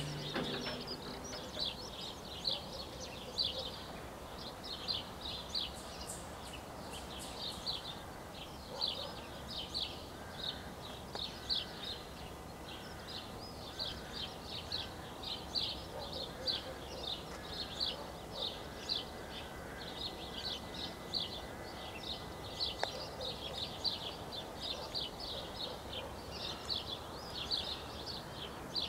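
Small songbirds chirping: rapid runs of short, high chirps repeating throughout, over faint background noise.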